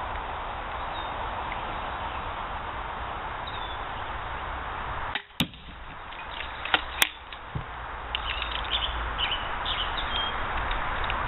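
Pistol crossbow shooting a bolt: a sharp snap about five seconds in, then a second sharp crack about a second and a half later, over steady outdoor background noise.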